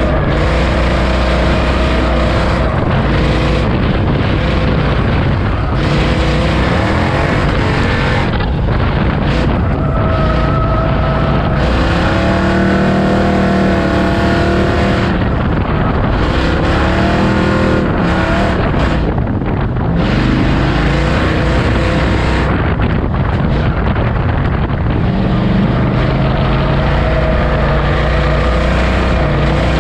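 Ford Outlaw figure-8 race car's engine at racing speed, heard from inside the cockpit. It runs hard, its pitch rising and falling again and again as the car speeds up and lifts off.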